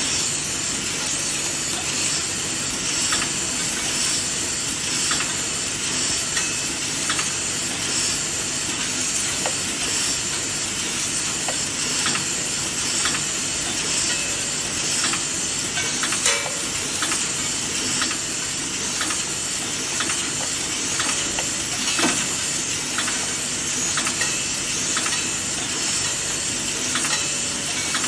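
Whistle lollipop packaging machine running: a steady hissing whir with a light, sharp click repeating about once a second as the packing cycle turns over.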